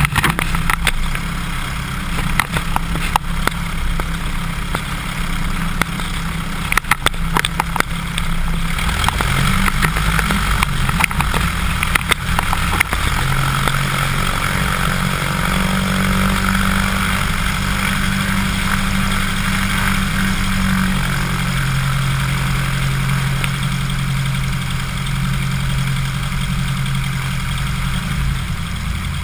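Cessna 150's four-cylinder air-cooled Continental engine and propeller running at low taxi power, its pitch stepping up and down a few times as the throttle is moved. Wind buffets the microphone in crackling gusts during the first several seconds.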